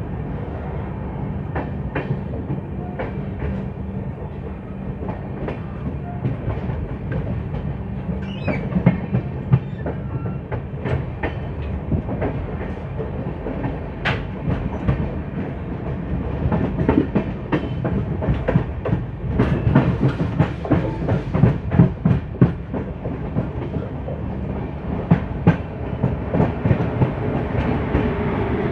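Indian Railways passenger coach running along the track, heard from aboard: a steady low rumble of wheels with sharp clickety-clack as they cross rail joints and points. The clacks come thicker and louder in the second half.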